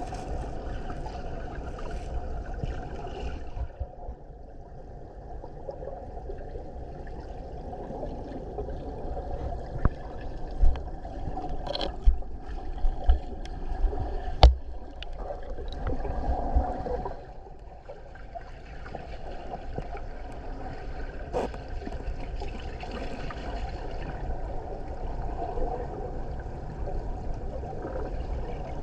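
Running water of a creek or waterfall, a steady rush with low rumble, with a few sharp knocks between about ten and fifteen seconds in.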